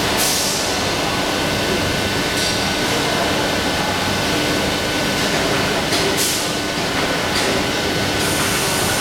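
Injection molding machine running with the mold clamped shut, giving a loud, steady mechanical hum and noise, broken by a few short hisses.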